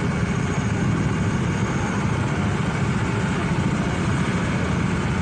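Motorcycle riding at steady speed: the engine running evenly under a constant rush of road and wind noise.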